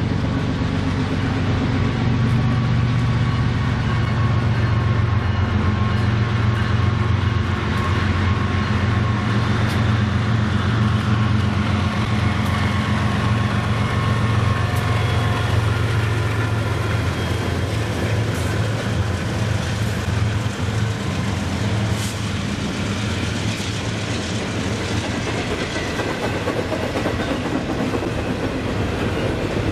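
Diesel locomotives working as they approach and pass, a deep steady engine drone loudest in the first half. After they go by, double-stack container cars roll past with steady wheel-on-rail noise and scattered clicks over the rail joints.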